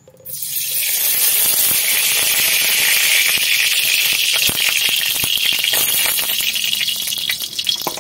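Cooking oil sizzling as it is poured into a hot, dry aluminium karahi: a steady hiss that starts just after the pour and eases near the end, with small crackles through it.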